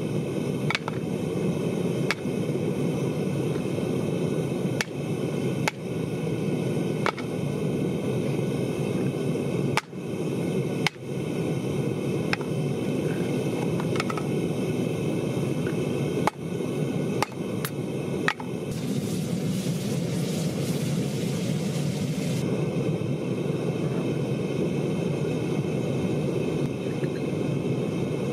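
Gas-fired melting furnace burner running with a steady rushing noise, with scattered sharp metallic clicks and knocks. A brighter hiss rises over it for about four seconds, two-thirds of the way through.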